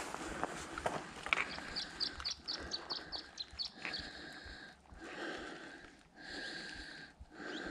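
Footsteps on loose stones, then a quick run of about ten short, high, rising chirps, followed by a sound in steady bands that stops and starts about once a second.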